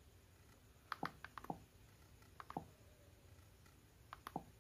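Faint clicks as the Xiaomi Mi TV's setup menu is stepped through with its remote: three short clusters of clicks, about one, two and a half and four seconds in, each ending in a duller, lower knock.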